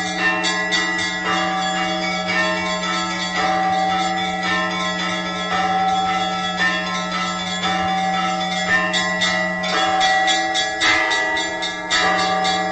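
Orthodox church bells ringing in a continuous Easter peal: smaller bells struck in quick succession over a steady low hum from a larger bell.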